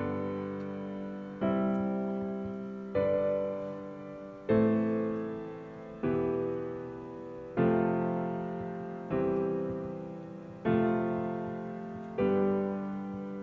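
Background piano music: slow chords, a new one struck about every second and a half, each fading away before the next.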